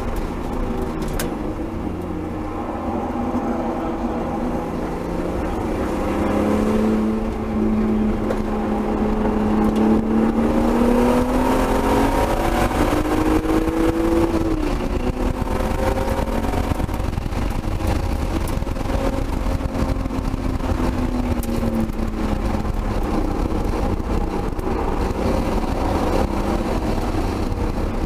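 Turbocharged BMW M3's straight-six engine heard from inside the cabin under hard acceleration. Its note climbs for several seconds, drops sharply about halfway in, holds steady, then falls away again later.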